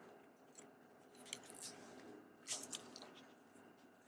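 Faint, scattered small clicks and light scraping of gloved hands handling a laptop's battery pack and its cable inside the opened chassis, with the strongest clicks about two and a half seconds in.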